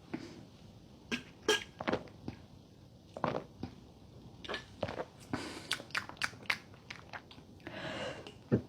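Close-up mouth sounds of drinking soda: a scattered run of short wet clicks and swallows, coming thicker about five to six seconds in, then a brief breathy hiss near the end.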